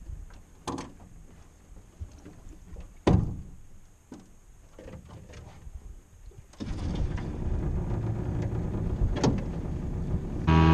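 A few knocks and clunks from a small tiller outboard motor on an aluminum fishing boat as it is being started, then about two-thirds of the way through the motor catches and runs steadily.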